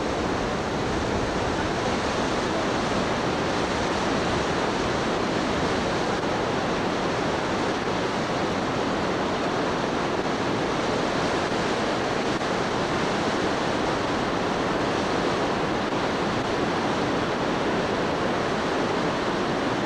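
A mountain stream in flash flood, its torrent giving a loud, steady rush of water.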